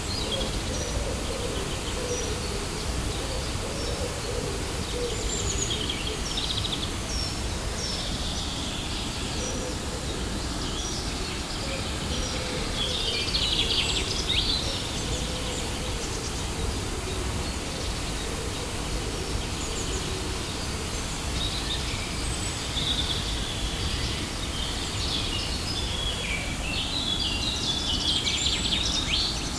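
Waterfall rushing steadily, with many birds chirping and trilling over it in short bursts throughout.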